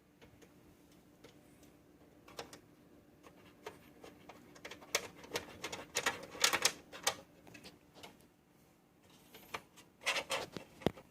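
Scattered clicks and light knocks from handling a small desktop computer, busiest in the middle and again near the end, over a faint steady hum.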